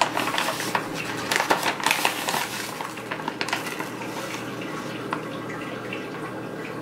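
Plastic sweetener pouch crinkling as it is opened, and a metal measuring spoon clicking and scraping as it scoops granulated sweetener. The clicks and rustles come thickly in the first few seconds, then thin out.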